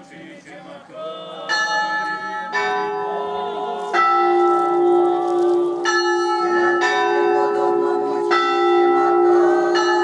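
Orthodox church bells being rung: several bells of different pitch struck in an uneven pattern, starting about a second in. Each strike rings on, and a deep bell hums steadily underneath from about four seconds in.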